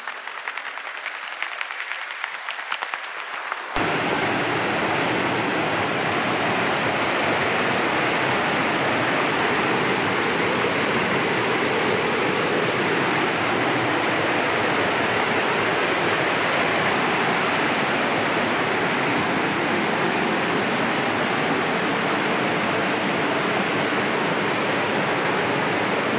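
Steady rushing of river rapids, a loud even roar of water. It starts with a sudden cut about four seconds in; before that there is a fainter crackly patter.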